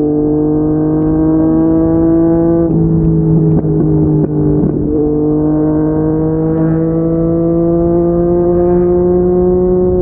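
Yamaha MT-09 inline-three engine through a Yoshimura R55 slip-on exhaust, pulling in gear with its note slowly rising. The note breaks about three to five seconds in, then climbs steadily again.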